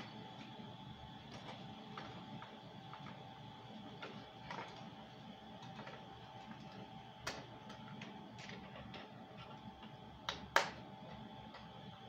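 Small plastic clicks and handling knocks, scattered and irregular, the loudest a quick pair about ten seconds in, over a faint steady whine.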